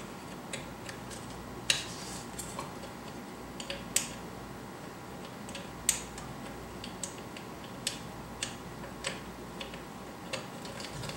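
Light, irregular clicks and ticks of small screws and fingers against the swing-arm lamp's head as the screws are threaded in by hand, a few sharper clicks about 4 and 6 seconds in.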